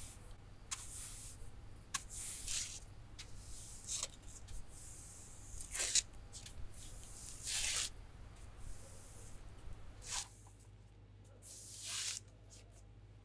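Short, irregular scraping swishes across pavement, one every half second to a second, over a low steady hum that cuts off about ten seconds in.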